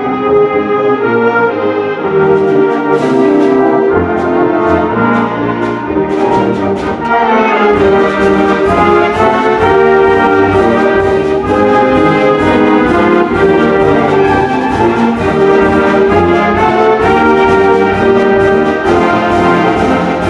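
High school concert band playing a brass-led piece with sustained chords. Percussion strikes come in about two seconds in, the band sweeps upward around seven seconds, and from about eight seconds a steady quick drum beat runs under the brass.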